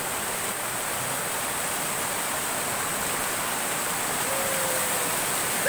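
Small waterfall cascading over rocks into a stream: a steady rush of falling water.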